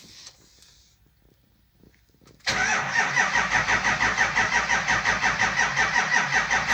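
Ford F450's 7.3L V8 diesel engine cranking on the starter in an even, rapid rhythm for about four seconds without catching, then stopping. This is a crank-no-start, which the owner traces to a faulty camshaft position (CMP) sensor.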